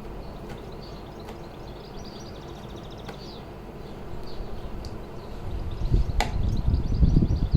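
Small birds chirping faintly in the background. About six seconds in comes a sharp click, and a low rumbling noise grows louder toward the end.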